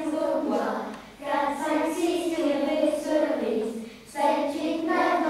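Children singing together in unison, in sung phrases with short breaks about a second in and again about four seconds in.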